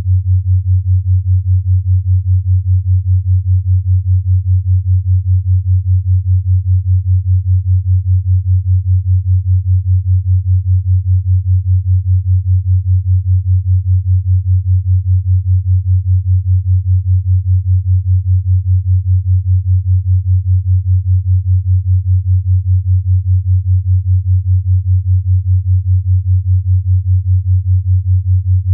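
A 5 Hz binaural beat: a low, steady sine tone that pulses evenly about five times a second.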